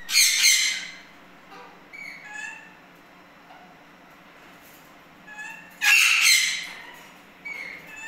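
Eclectus parrots calling: two loud, harsh squawks, one at the start and another about six seconds in, with a few short, softer whistled notes between them.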